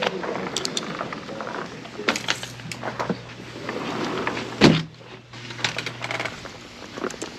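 A sliding glass patio door being handled and slid, with a sharp thud a little before five seconds in, the loudest sound; then the latch of a screen door clicks. A low steady hum runs underneath and stops about six seconds in.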